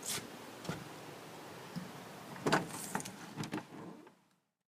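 Workshop door being opened: a few clicks and knocks of the latch and door, the loudest about two and a half seconds in. The sound cuts off suddenly near the end.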